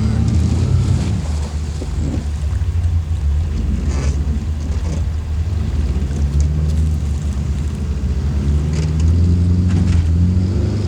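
Steady low rumble of a boat motor running near the water, with wind buffeting the phone's microphone.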